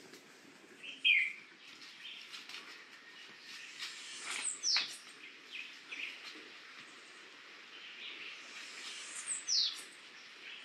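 Birds calling: a short sharp call about a second in, then two clear whistled calls that slide down from high to lower pitch, one near the middle and one near the end, with fainter chirps in between.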